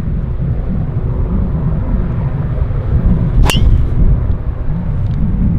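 Strong wind buffeting the microphone, with the sharp crack of a driver striking a golf ball off the tee about three and a half seconds in.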